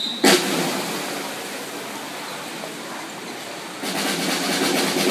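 Swimmers splashing just after a backstroke start in an indoor pool. A sudden splash comes about a quarter second in, then a steady wash of splashing that grows louder and turns rhythmic near the end.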